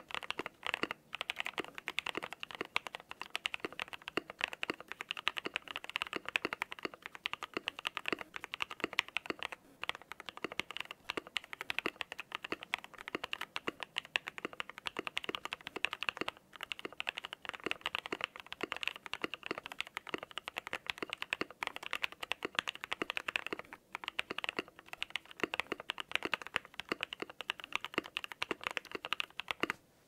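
Fast continuous typing on an Iron180 mechanical keyboard with stock aeboards Raed switches on a brass plate, with plate foam, a tape mod and case dampening, IFK Comfy keycaps and lubed Staebies stabilizers. The keystrokes run in a dense stream with a few brief pauses, and the case dampening covers the case's hollowness.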